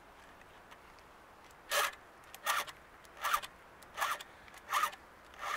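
Chainsaw file rasping across the cutter teeth of a Husqvarna 455 Rancher's chain in forward-only strokes, as the chain is hand-sharpened. Six short strokes come about one every three quarters of a second, starting nearly two seconds in.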